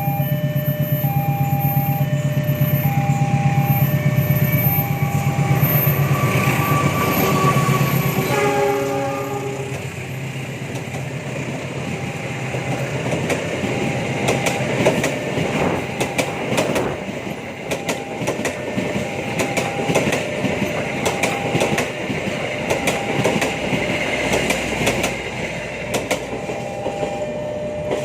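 A train passes close by. A locomotive engine runs loud for the first eight seconds or so, and then the carriages clatter over the rail joints with a quick run of clicks. Throughout, short electronic chimes repeat at an even pace in alternating pitches, typical of a railway level-crossing alarm.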